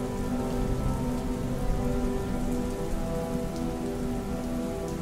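Steady rain sound laid over slowed, reverb-heavy music: held chords change about once a second, with no singing.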